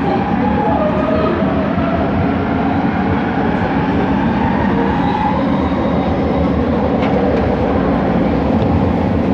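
Bombardier Innovia ART 200 driverless metro train heard from on board while running: a steady, loud rolling rumble, with the whine of its linear induction motors gliding up and down in pitch, most clearly in the first couple of seconds.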